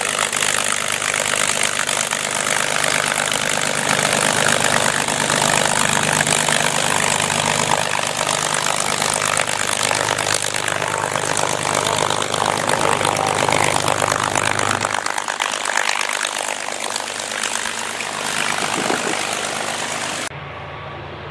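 P-51 Mustang's Packard Merlin V-12 engine running steadily at taxi power with propeller noise as the fighter taxis past. The deep engine note fades about three-quarters of the way in as it moves off. The sound cuts suddenly to a quieter level near the end.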